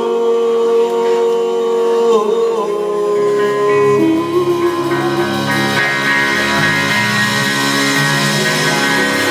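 Live country-rock band playing: a long held note bends about two seconds in, bass notes join about three and a half seconds in, and the full band with cymbals builds from about six seconds.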